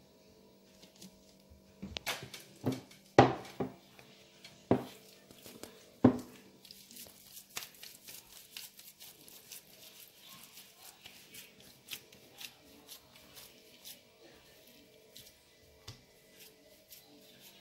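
Hands kneading and squeezing a soft, wet flour-and-water dough in a bowl: several loud slaps and knocks in the first six seconds, then a long run of small sticky clicks as the dough is worked.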